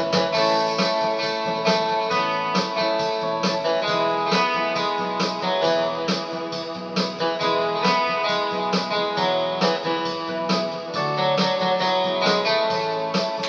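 Yamaha Tyros arranger keyboard playing an instrumental in guitar-like plucked and strummed voices, over a steady rhythmic accompaniment.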